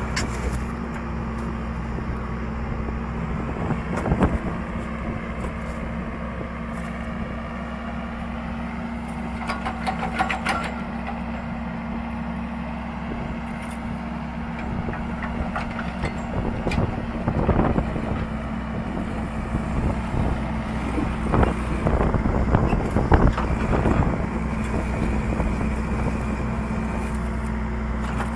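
Heavy construction machine's engine running steadily, with scattered knocks and clatters: one about four seconds in, a cluster near ten seconds, and several more in the second half.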